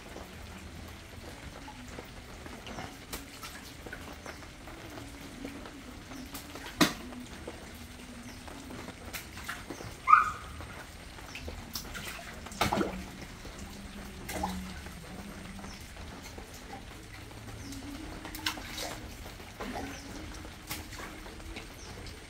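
Large fish splashing at the water surface as they strike at feed fish, in occasional sharp splashes, the loudest about ten seconds in, over a faint steady low hum. A short high chirp sounds with the loudest splash.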